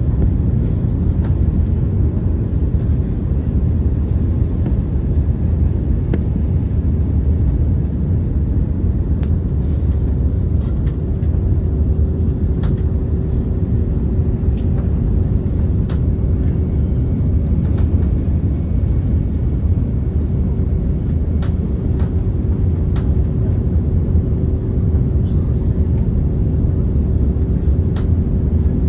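Airliner cabin noise in flight: a steady deep rumble of engines and airflow, with a faint steady hum coming in about ten seconds in and a few faint ticks.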